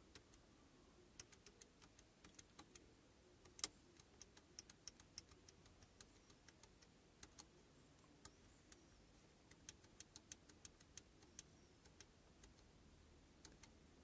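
Faint clicks of a factory GM Chevrolet car radio's preset buttons, pressed over and over at an uneven pace while the digits of the security unlock code are stepped in. One click about three and a half seconds in is louder than the rest.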